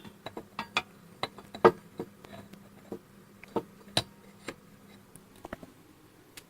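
Irregular light clicks and knocks of the belt grinder's metal parts being handled, with one sharper knock a little under two seconds in.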